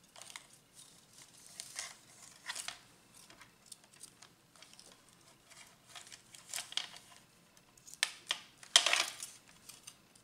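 Intermittent rustling and crinkling as thin gold craft wire is handled and laid along a measuring tape, with the loudest rustles near the end.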